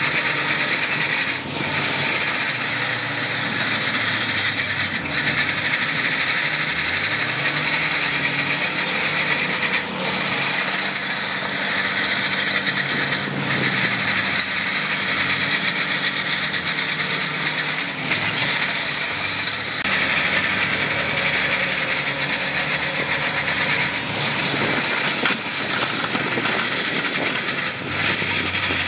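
Heavy diesel equipment working: a large diesel engine running steadily under a dense, harsh high hiss. The engine pitch dips and rises again about seven to ten seconds in.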